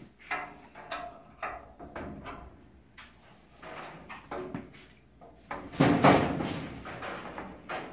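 An aluminium RV-7 fuselage being turned by hand on a wooden 4x4 rotisserie, with knocks, clicks and creaking from the pivot and wooden frame. A longer, louder noise comes about six seconds in.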